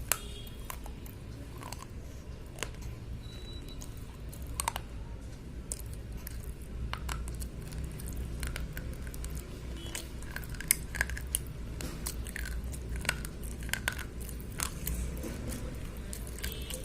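Slate pencils being bitten and chewed, with irregular sharp crunches and clicks through the chewing.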